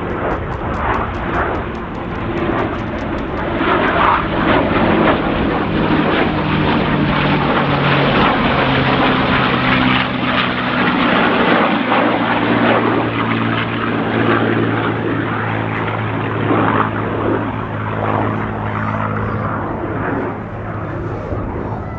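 An F/A-18A Hornet's twin jet engines and a CAC CA-17 Mustang's Merlin V12 pass together in a formation flypast: a loud jet roar mixed with the piston engine's drone. The sound builds to a peak midway as the pair pass, the engine tones drop in pitch, and the sound fades away near the end.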